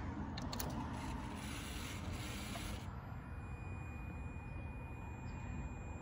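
A few light clicks as a motorcycle ignition key is turned on, over a steady low background rumble.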